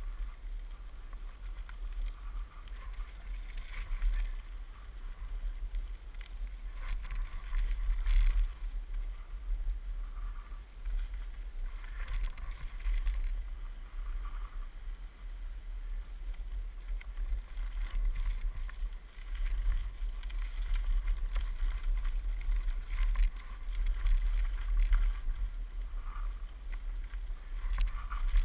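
Mountainboard wheels rolling fast over rough, bumpy ground, a continuous low rumble with louder rattling surges every few seconds as the board hits bumps.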